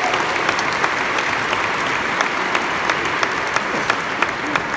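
A large seated audience applauding. The clapping thins out toward the end to a few scattered claps.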